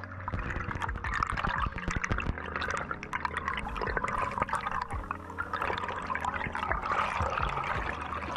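Underwater sound on a diver's camera: muffled water movement and bubbling, with dense crackling clicks throughout and a low steady hum underneath.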